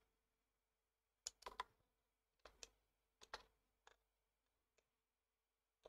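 Faint computer keyboard and mouse clicks in a few quick clusters. The busiest cluster comes about a second and a half in, and a last single click comes near the end.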